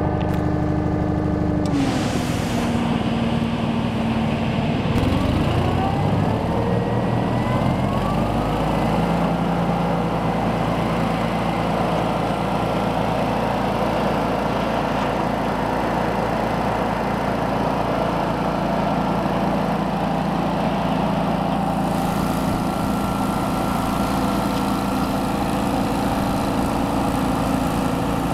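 Field/nut elevator's engine-driven hydraulic drive running, a small engine running steadily. Its pitch dips about two seconds in, then a whine rises in pitch between about five and eight seconds in as the hydraulic drive and conveyor belt come up to speed, and it holds steady after that.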